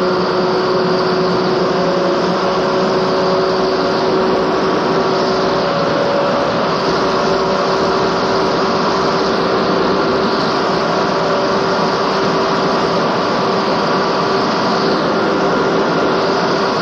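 Porsche 956 racing car's twin-turbo 2.65-litre flat-six engine running at a steady pitch, heard from inside the cockpit over a constant rush of noise.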